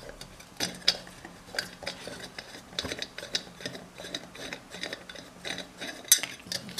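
Screwdriver working a screw out of the lamp-socket holder inside a metal lamp shade: irregular metallic clicks, clinks and scrapes of tool and parts against the shade, with a sharper clack about one second in and another near the end.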